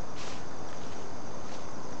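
Footsteps and rustling on a grassy dirt trail, with low rumble from a handheld camera on the move and a short swish just after the start.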